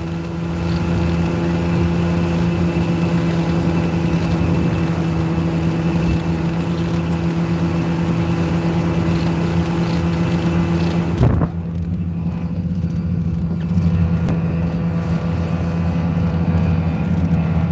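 Snowmobile engine running at a steady, even pitch while riding. A short click about eleven seconds in, after which the sound is duller.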